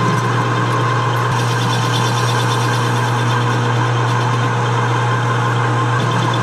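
Metal lathe running steadily, a boring bar cutting inside the exhaust port of a Triumph Tiger Cub cylinder head to machine out the old port tube; a constant motor hum with steady cutting noise over it.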